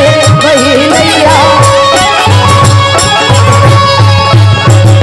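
Instrumental interlude of a live Bhojpuri devotional song: a wavering melody over regular drum strokes and a steady bass.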